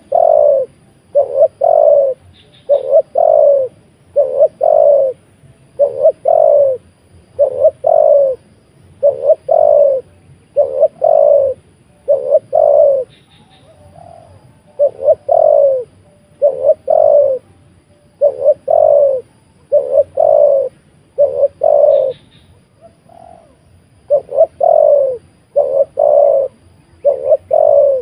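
Spotted dove cooing over and over: a low two-part coo about once a second, with two short pauses.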